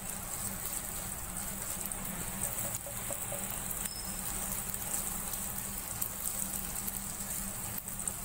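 Beaten egg sizzling steadily in hot oil in a nonstick wok as a silicone spatula breaks it up and stirs it, with a few faint light clicks.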